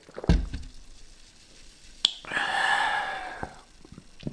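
A low thump near the start, a sharp click about two seconds in, then a long breathy exhale of about a second from a man who has just drunk from a bottle of cola.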